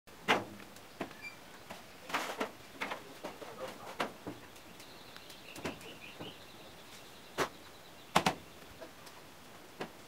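Corrugated metal roofing sheets clanking and knocking as they are handled and stood up against a wooden frame: a string of sharp, irregular knocks, the loudest at the start and about eight seconds in. A bird chirps faintly in the middle.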